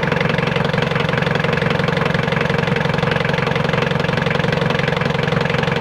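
Mitsubishi 4D56 four-cylinder diesel engine running steadily at idle, with an even rapid diesel clatter. It runs with its injection pump timing advanced one gear tooth, the change that cured its hard starting.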